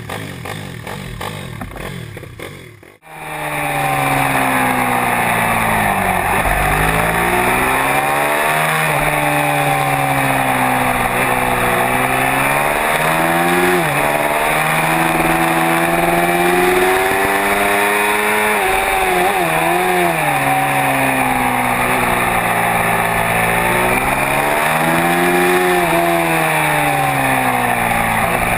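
Pit bike engines idling for about three seconds, then a sudden cut to a pit bike's single-cylinder engine at racing revs. Its pitch repeatedly climbs under acceleration and drops off for corners, over steady wind and road noise.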